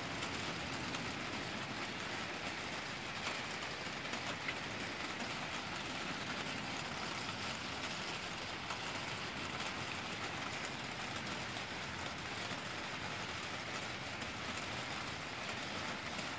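Rain shower falling steadily on garden foliage and wet paving: an even hiss with a few faint drop ticks.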